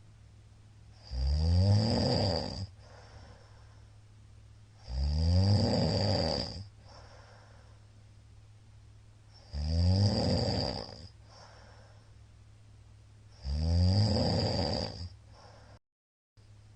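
A man snoring loudly in his sleep: four snores, each about a second and a half long and rising in pitch at its start, coming about every four seconds.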